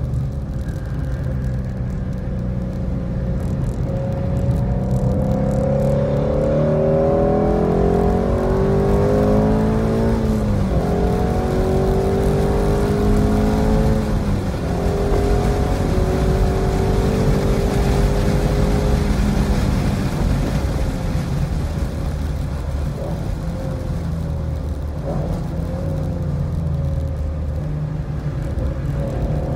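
2017 Ford Mustang's engine heard from inside the car at track pace: revs climbing under throttle, falling away as it slows and downshifts for a slow corner about halfway through, then climbing again in several steps as it pulls up through the gears. Tyre and wind noise run underneath.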